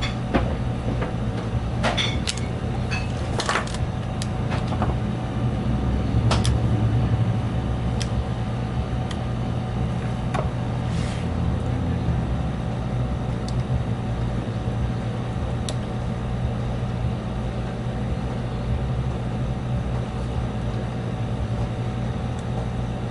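Steady low mechanical hum with scattered light clicks and taps as hands handle the plastic body and camera gimbal of a DJI Phantom 4 drone. The clicks come mostly in the first half and thin out after that.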